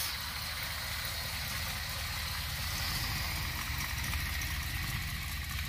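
Chevrolet 350 small-block V8 in a custom trike idling steadily, heard near its chrome exhaust pipe.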